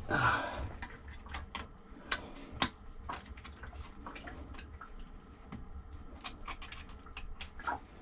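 Scattered small clicks and knocks of hands working among a bilge pump's hose fittings and wiring, with a low steady rumble underneath.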